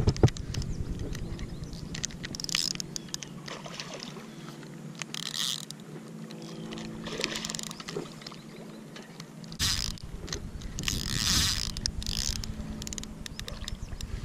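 Spinning reel being cranked while a hooked bass is fought on light line, with a steady low hum and several short rushing bursts.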